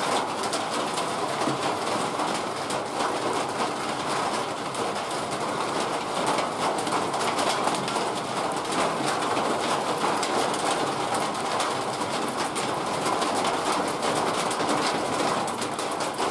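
Heavy rain coming down steadily, a continuous hiss thick with the patter of drops.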